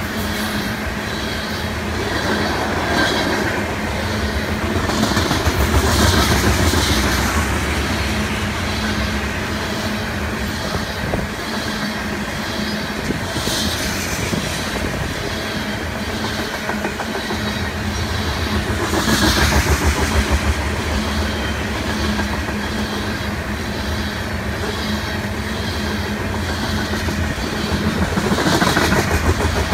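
Loaded ethanol tank cars of a freight train rolling past: steady rumble of steel wheels on the rails with a clickety-clack over the rail joints. The noise swells every several seconds as cars go by.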